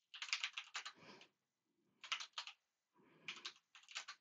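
Typing on a computer keyboard: quick keystrokes in three short runs with brief pauses between them.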